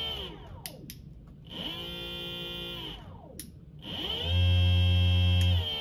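Electric motor of a motor-and-controller kit whining as the throttle is worked: it winds down just after the start, spins back up and holds, winds down again near three seconds, then spins up once more and holds louder with a low hum before easing slightly near the end.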